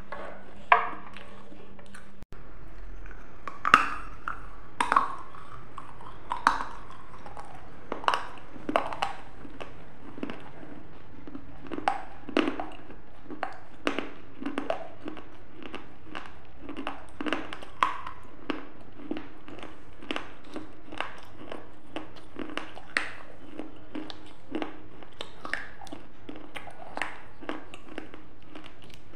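Close-miked chewing: a person eating with mouth closed, crisp crunches and wet mouth clicks coming irregularly, one to several a second, the loudest in the first few seconds.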